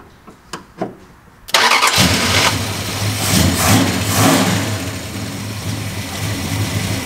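Carbureted car engine on a points ignition, freshly fitted with new, lubed points, starting after a few light clicks: it cranks briefly and catches about a second and a half in. It revs up for a couple of seconds, then settles to a steady idle.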